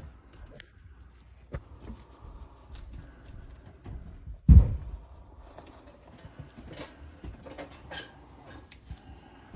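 Scattered light clicks and knocks of handling and bumping, with one louder dull thump about halfway through.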